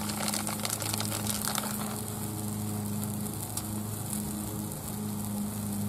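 Tortillas and shredded cheese sizzling and crackling on a hot Blackstone flat-top griddle whose burners are off, with a steady low hum underneath.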